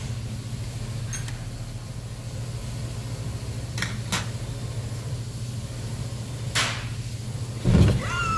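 Small ceramic side-dish plates being set down on a wooden table: a few short, sharp clinks and knocks, with a duller thump near the end, over a steady low hum.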